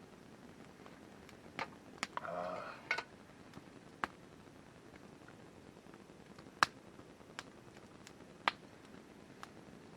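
A few sharp, light clicks and taps of utensils against cookware, spread out with long gaps between them, the loudest about six and a half seconds in, and a brief scrape a little after two seconds in.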